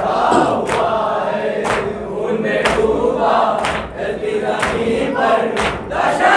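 A group of men chanting a noha refrain in unison. Matam chest-beats land about once a second, keeping time with the chant.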